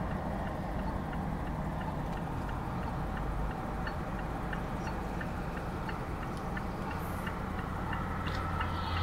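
A car's turn-signal indicator clicking in an even, steady rhythm inside the cabin, over the low hum of the idling engine.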